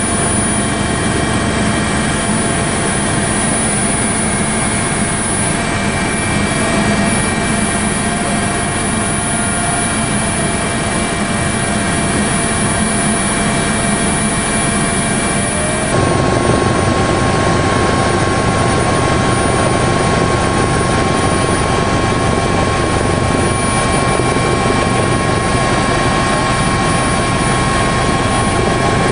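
Steady helicopter noise heard from on board, a dense drone with fixed tones. About halfway through, its tone shifts abruptly and it gets slightly louder.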